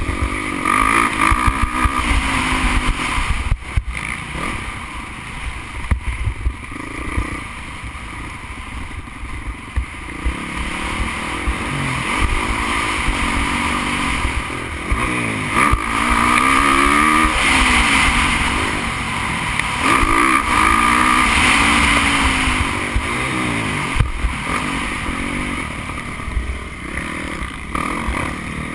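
Onboard sound of a motocross race bike's engine, revving up and dropping back again and again as the rider accelerates and shifts along the track, over a constant low rumble.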